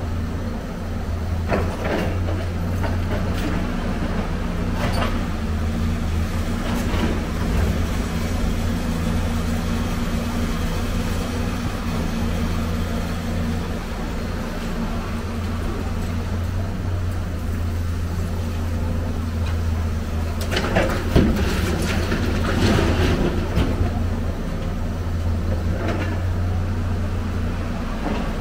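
Heavy diesel excavator engine running steadily, with scattered clanks and scrapes of scrap metal being handled. A cluster of louder clanks comes about three-quarters of the way through.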